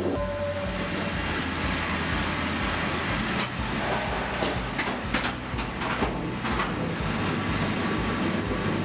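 Heavy machinery engine running steadily, with irregular clanks and knocks over it.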